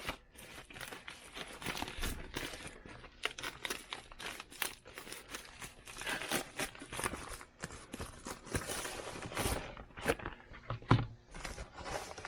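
A thick package being handled and worked open by hand: irregular crinkling and rustling of the wrapping, with a couple of sharper crackles near the end.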